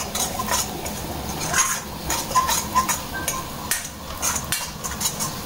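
Metal spatula scraping and stirring chopped garlic and ginger around a hot wok in quick, irregular strokes, over a light sizzle of frying in oil.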